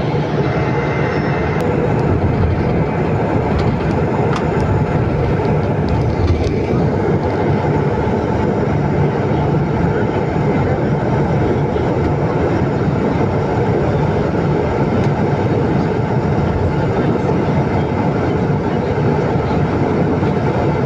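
Steady engine and road noise from inside a moving bus.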